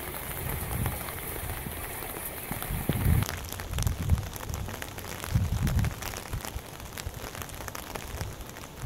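Rain falling on wet ground, a steady hiss with scattered drop ticks, and gusts of wind buffeting the microphone every second or two. The sound changes about three seconds in, as the ticks get sharper.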